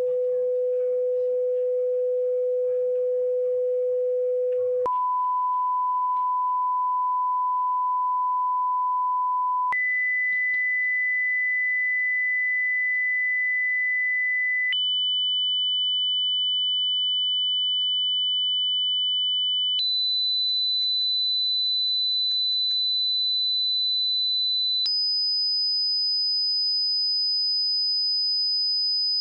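Hearing-test tones: a steady pure sine tone that jumps up in pitch every five seconds or so, six pitches in all, climbing from a mid tone to a high, thin one.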